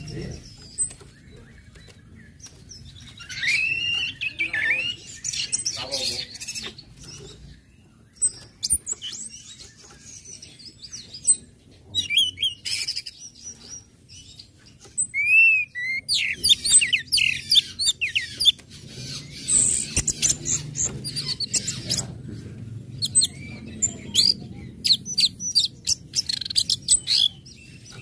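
Orange-headed thrush singing: a varied stream of short chirps, high ticking notes and whistled phrases that slide up and down, growing busier from about halfway.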